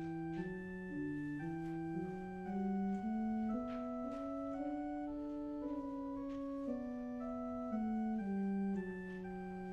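Organ playing a slow piece in sustained chords, the notes held steady and changing every second or so.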